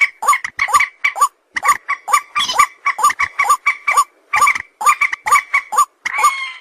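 Repeated short, pitched animal calls, each a quick rise and fall in pitch, coming about three a second in groups separated by brief silences.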